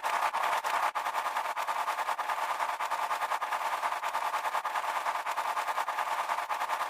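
A rapid, steady rattle of clicks, several a second, over a continuous hiss: a sound effect in the manner of automatic gunfire.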